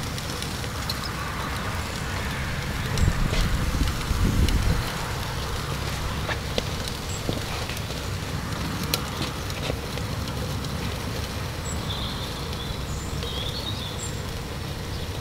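Wind buffeting the microphone outdoors, a low rumble that gusts harder about three to five seconds in, with scattered light clicks and a few faint high chirps near the end.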